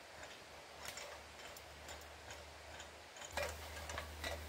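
Faint scattered clicks and taps from a man climbing down an aluminium ladder, with a steel chain hanging beside it.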